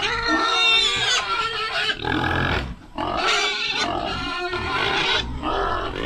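Pigs in a pen squealing and grunting loudly, in long harsh cries one after another, with a short break about three seconds in.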